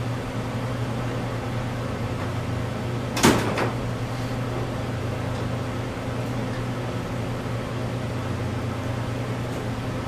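Steady machinery hum with a single sharp metallic clank a little over three seconds in.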